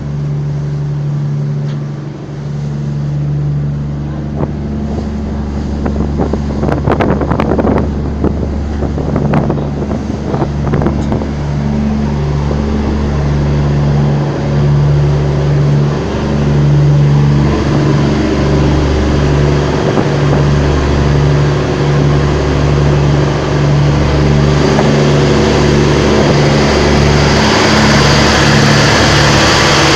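An engine running under test, with a steady low hum. A cluster of sharp clicks or knocks comes about six to eleven seconds in, and the sound grows slightly louder and noisier toward the end.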